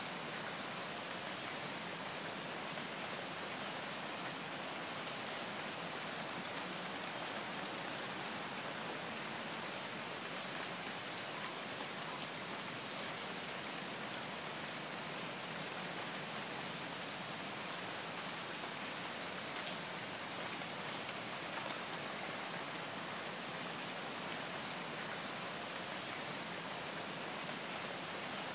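Steady rain falling, an even hiss that does not change, with a few faint drop ticks.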